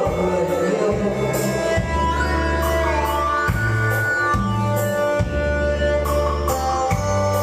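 Instrumental backing music with bass, guitar and drum kit keeping a steady beat, with no singing.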